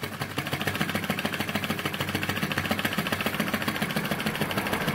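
Flame-licker model engine (alcohol flame drawn into the cylinder) running fast and very steady, with a rapid, even beat from its piston and valve.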